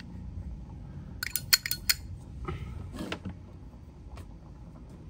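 Zippo lighter clinking as it is handled: a quick run of sharp metallic clicks about a second in, then a couple of single clicks.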